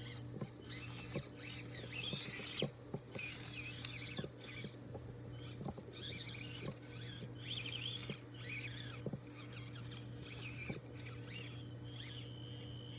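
Axial SCX24 micro RC crawler's tiny motor and gearbox whining in short, rising and falling squeaky bursts as it is throttled on and off while crawling over rocks, with scattered clicks of the tyres and chassis knocking on stone.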